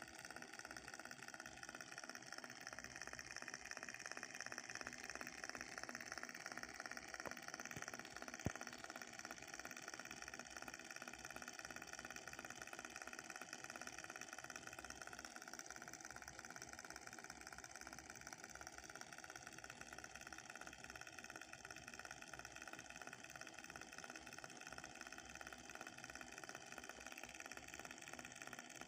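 Miniature Dongfeng diesel engine model running steadily with a fast, even chatter, with one sharp click about eight seconds in.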